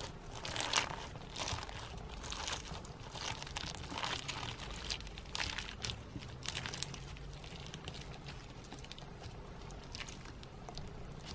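Slime mixed with snowflake-shaped sequins being squeezed and kneaded by hand. The sequins make an irregular crunchy, crinkling sound (ザクザク). The crunches come thick for about the first six or seven seconds, then thin out and grow quieter.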